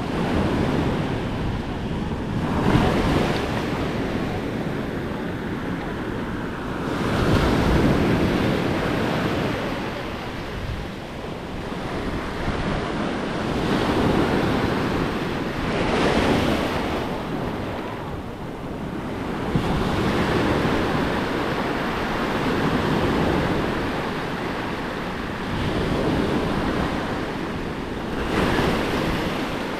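Small ocean waves breaking and washing up over a flat rock shelf at the water's edge, the surf swelling and falling back every few seconds.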